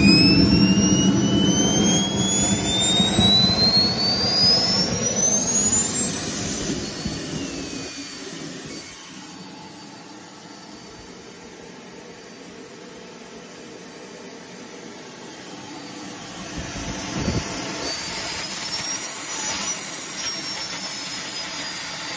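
KingTech K-260G5 model jet turbine spooling up, its whine rising steadily in pitch over the first several seconds, then running at a steady high whine. The level sags through the middle, and the whine briefly climbs and falls again about three quarters of the way through.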